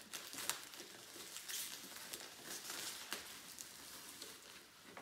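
Clear plastic bag crinkling and rustling as a boxed figure is worked out of it, with styrofoam packing peanuts rubbing and shifting inside. It comes as an irregular run of light crackles and small clicks.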